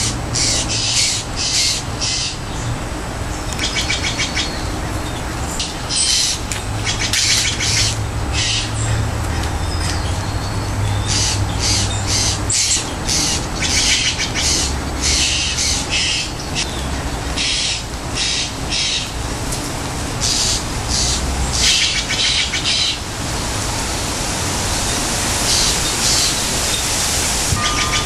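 Steller's jays calling: rapid series of short notes repeated in bursts all through, over a low steady rumble.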